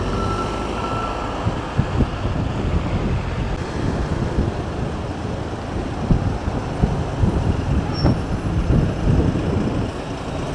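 Street traffic: a steady rumble of vehicle engines with scattered knocks, and a thin steady tone in the first second and a half.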